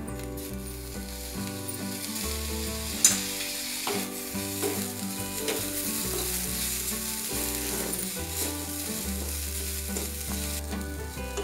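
Crushed peanut chutney sizzling in hot oil in a steel kadhai as it is stirred and fried until crisp, with one sharp tap about three seconds in.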